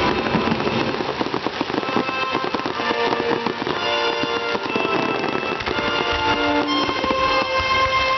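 Aerial fireworks crackling and popping densely and without pause, over music from the show's soundtrack whose held notes come through more clearly from about three seconds in.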